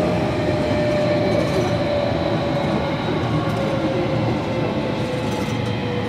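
Running sound heard inside a JR Kyushu 305 series electric train's motor car in a subway tunnel: a steady rumble of wheels on rail with the traction motors' whine, one clear tone sliding slowly down in pitch.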